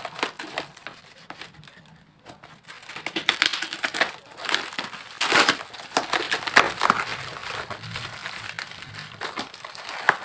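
Scissors snipping and tearing through taped plastic wrapping, with the plastic and foam packing crinkling and rustling in irregular bursts.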